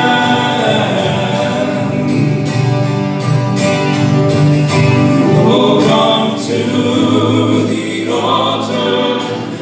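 A group of voices singing a contemporary worship song together, with instruments backing them.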